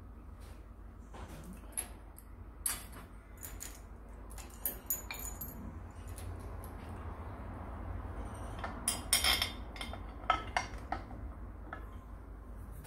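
Irregular small metallic clicks and clinks of steel screws and hand tools being handled against a metal mounting plate, with a quick run of sharper clinks about nine seconds in.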